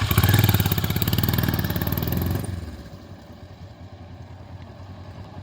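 Kawasaki Versys 650 parallel-twin motorcycle engine pulling away, running cleanly, then fading into the distance after about two and a half seconds.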